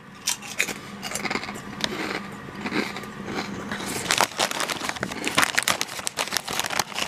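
Crinkling of a plastic potato chip bag being handled, mixed with the crunching of a kettle-cooked potato chip being chewed, as a dense run of irregular crackles.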